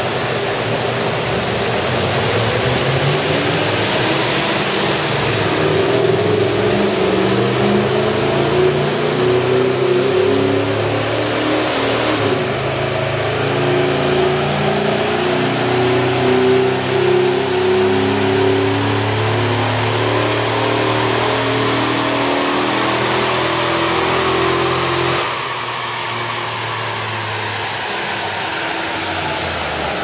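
Chevrolet Tahoe V8 making a full-throttle power run on a chassis dynamometer, running on gasoline: the engine note climbs steadily in pitch for over twenty seconds, then drops suddenly near the end as the throttle is lifted and it coasts down. A steady rush of air from a large cooling fan runs underneath.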